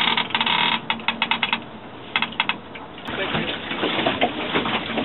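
Sailboat line being eased out slowly through its block: a rapid run of clicks for about the first second and a half, a short burst of clicks about two seconds in, then a steady rushing noise.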